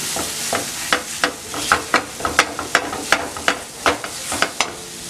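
Silicone spatula stirring and scraping a thick, lumpy butter-and-flour roux with a little milk around a hot non-stick pan: a quick, uneven run of scrapes and taps over a sizzle. It is the stage of working milk into the browned roux so no lumps form.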